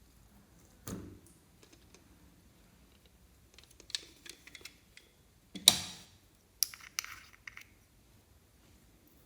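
Slime being handled and mixed, giving a few short bursts of crackling and clicking pops, the loudest a little past halfway.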